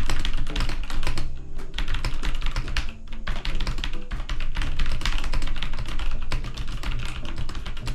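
Fast, continuous typing on a Velocifire VM02WS mechanical keyboard with clone Cherry MX Brown tactile switches, a dense run of keystrokes with keys bottoming out. It is relatively loud but muffled.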